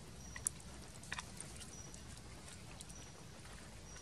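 Faint handling sounds as stuffed water snakes are pressed and arranged on a tray: a few sharp clicks and taps, the loudest about half a second in and a small cluster just after a second, over a low steady hum.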